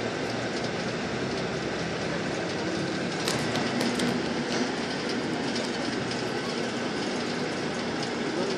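Steady engine and road noise inside a moving road vehicle, with a few sharp clicks and rattles about three to four seconds in.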